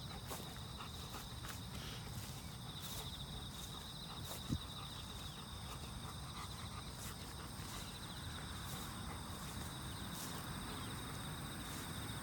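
Insects trilling, a high, finely pulsing drone that fades in and out, with a single sharp knock about four and a half seconds in.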